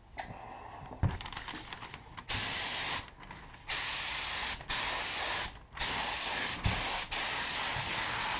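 Gravity-feed automotive paint spray gun (DeVilbiss GTI Pro) spraying the first coat of paint, a steady hiss of air and atomised paint. It starts about two seconds in and comes in four passes, cutting off briefly between them as the trigger is released.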